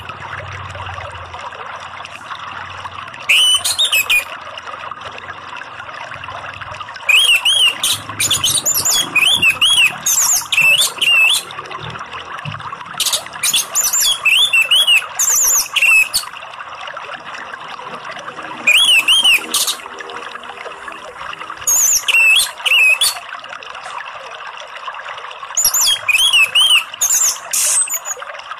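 Orange-headed thrush (anis merah) singing loud, rapid whistled phrases a few seconds apart, over a steady rush of flowing water.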